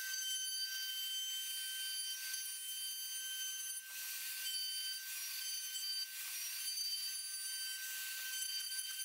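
DeWalt compact trim router running with a roundover bit: a steady high-pitched whine, with a rougher hiss that swells and fades several times as the bit cuts along the edges of a spruce workpiece.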